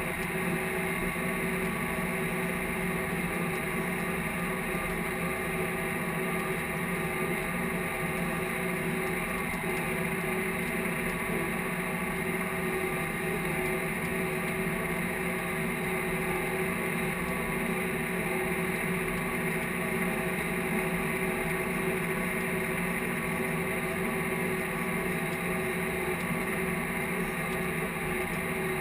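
Case IH tractor's diesel engine running steadily under load as it pulls a field cultivator, heard from inside the closed cab as an even, unchanging drone.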